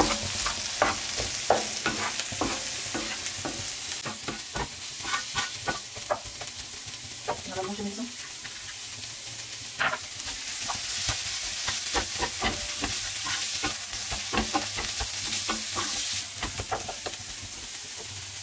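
Onions, green peas and spices sizzling in oil in a nonstick frying pan while a wooden spatula stirs them, with frequent light clicks and scrapes of the spatula against the pan.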